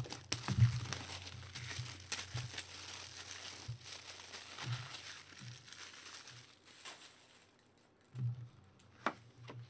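Clear plastic shrink wrap crinkling as it is peeled off a box of trading cards, fading out after about seven seconds. A light knock and a click follow near the end.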